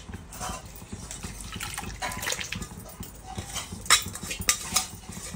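Hot chicken stock pouring from an aluminium pot into a larger pot of spiced water, with a few sharp metal clinks about four seconds in.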